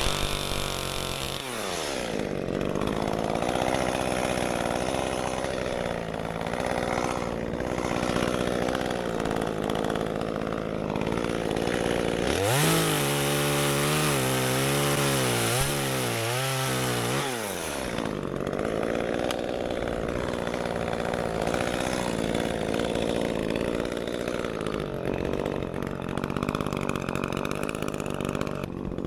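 Echo 355T top-handle two-stroke chainsaw idling, revved up and wavering under load for about five seconds midway as it cuts, then dropping back to idle.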